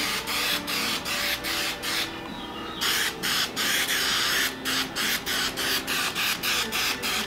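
Aerosol can of 3M Hi-Strength 90 contact spray adhesive hissing in quick pulsing sweeps as a coat is sprayed onto upholstery material and its panel, with a brief pause about two seconds in.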